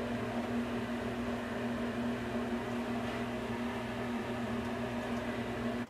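A steady machine hum at one constant pitch, with a faint hiss beneath it.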